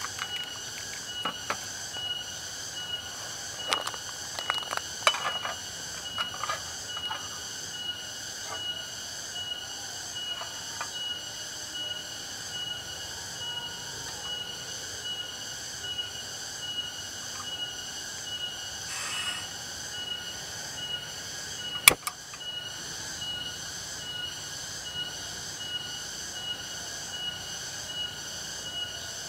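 Insects chirping in a steady, high-pitched rhythm of about two pulses a second, with a few light taps in the first seconds and one sharp click a little over twenty seconds in.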